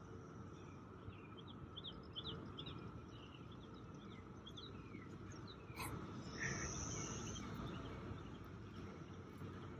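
A faint, steady chorus of 17-year periodical cicadas droning outdoors, with short bird chirps over it and a single sharp click about six seconds in.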